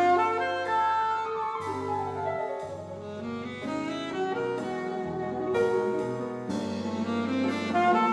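Jazz quartet playing live: saxophone carrying the melody over piano and double bass, with a long falling run about a second in.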